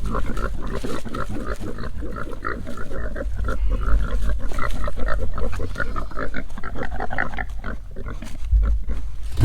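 A group of pigs grunting and squealing, many short overlapping calls without a break: pigs clamouring to be watered while their nipple waterer is frozen.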